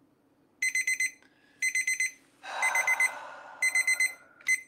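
Electronic alarm beeping: groups of four quick high-pitched beeps about once a second, the last group cut short as the beeping stops. A rush of noise sounds under the middle groups.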